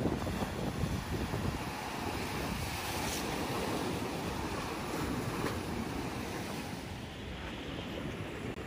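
Choppy surf breaking and washing against the stone blocks of a jetty, with wind buffeting the microphone.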